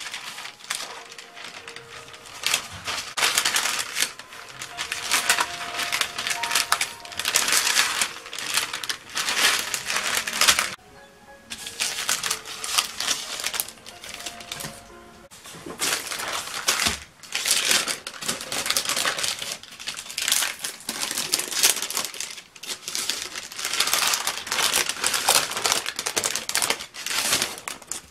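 Sheets wrapped around chocolate tart dough crinkling and crackling as the dough is rolled out flat between them with a rolling pin. The crinkling comes in repeated runs of strokes with brief pauses.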